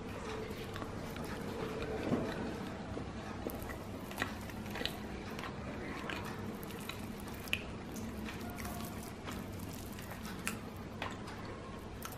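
Soft eating sounds: meat being pulled by hand off a whole chicken cooked in kacchi biryani and chewed. Scattered small clicks sound over a faint steady hum.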